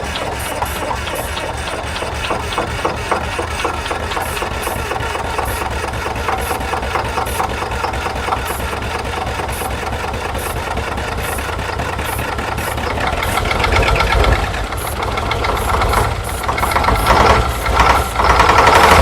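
Old Chevrolet Kodiak logging truck's engine running steadily, just brought back to life after sitting for decades. It gets louder and more uneven in the last few seconds.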